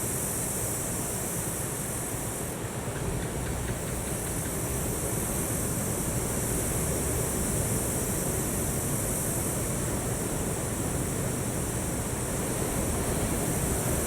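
Ocean waves washing onto a shore: a steady rushing surf noise with no separate breaks standing out.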